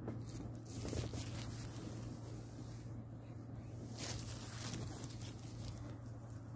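Cotton jersey t-shirt being handled and turned over by hand: soft fabric rustling and brushing, loudest about a second in and again about four seconds in, over a steady low hum.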